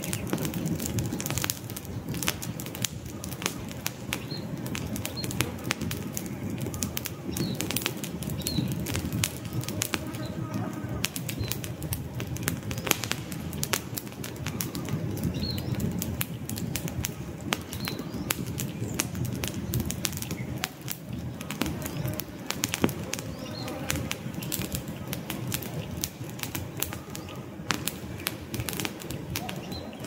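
Wood campfire burning: a steady low rush of flames with frequent sharp crackles and pops from the burning logs.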